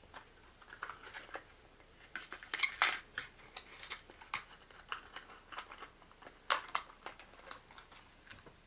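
Small clear plastic lure box and the little crankbait with it being handled: scattered light clicks, taps and rattles of hard plastic, loudest about three seconds in and again about six and a half seconds in.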